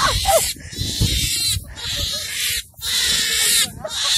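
Freshly caught rabbit screaming in distress: a run of harsh, hissy cries about a second long each, with short breaks between them.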